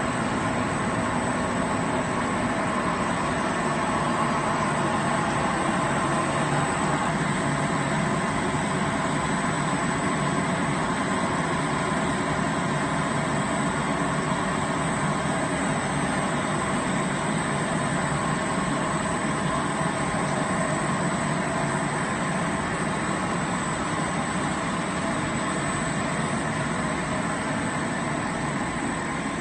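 Blown film extrusion line running: a steady, unbroken machine hum and whir from the extruder drive and blowers, with no starts or stops.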